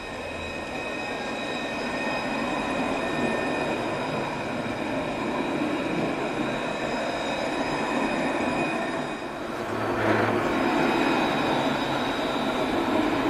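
Alstom Citadis tram passing close by on curved track: wheels rumbling on the rails with a steady, high-pitched multi-tone squeal. The sound dips briefly after about nine seconds, then comes back louder.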